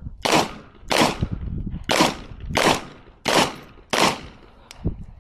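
Airsoft pistol firing six single shots, roughly one every two-thirds of a second to a second, each a sharp crack with a short fading tail.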